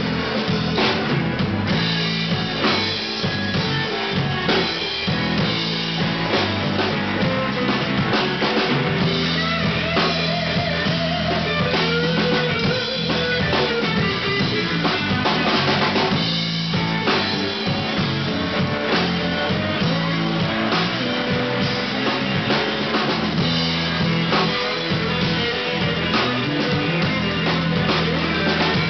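Live blues band playing: a Stratocaster-style electric guitar over a drum kit keeping a steady beat, with wavering guitar lines through the middle of the passage.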